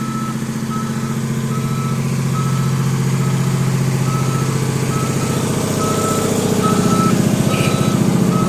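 Boom lift's motion alarm beeping evenly, about five beeps every four seconds, over its engine running, which grows louder near the end as the lift moves.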